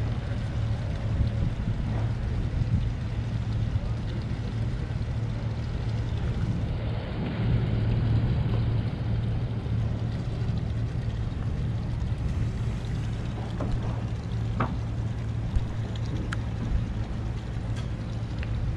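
Boat engine running steadily with a low hum, swelling briefly about seven seconds in, with a few light clicks and knocks later on.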